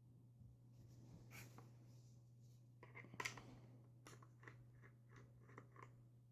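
Faint scratching and rustling of stiff paper and cardboard rifle parts being handled and pulled apart, a series of short strokes with the loudest about three seconds in, over a steady low hum.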